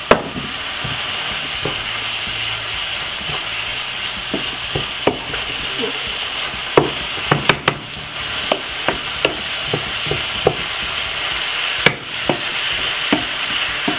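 Callaloo and mixed vegetables sizzling steadily in a frying pan while a wooden spoon stirs them, with scattered knocks and scrapes of the spoon against the pan.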